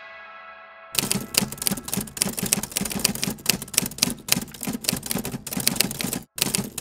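After the last note of the music dies away, manual typewriter keystrokes start about a second in and come in quick, uneven succession, with a brief stop near the end.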